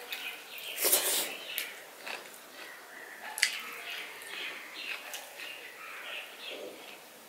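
Close-miked eating by hand: wet chewing and mouth smacks, and fingers squishing and mixing rice with dal and curry on a steel plate. The sounds come as irregular soft clicks and short bursts, the loudest about a second in, with one sharp click around the middle.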